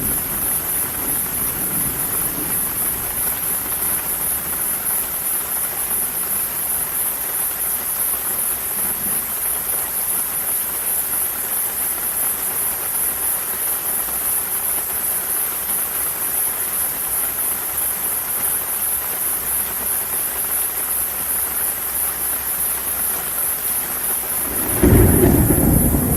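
Steady rain falling in a thunderstorm, with a high, fast-pulsing buzz above it. A loud low roll of thunder breaks in near the end.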